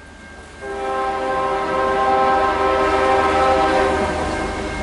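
Air horn of a CSX diesel freight locomotive sounding one long chord-like blast. It starts about half a second in and dies away near the end, over the low rumble of the approaching locomotives.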